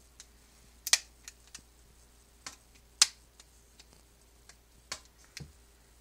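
About ten sharp plastic clicks at irregular spacing, the loudest about one and three seconds in: the snap clips of an Alcatel One Touch Fierce phone's plastic housing popping loose as it is pried apart along the screen edge.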